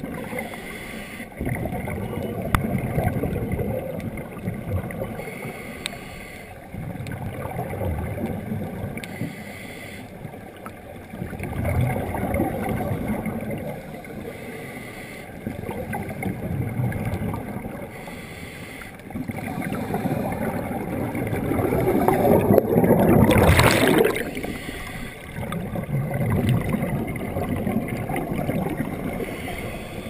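Underwater sound through a GoPro HD Hero's waterproof housing: scuba exhaust bubbles gurgling in swells every few seconds, over a muffled rushing of water in a fast drift-dive current. The loudest bubble burst comes a little over twenty seconds in.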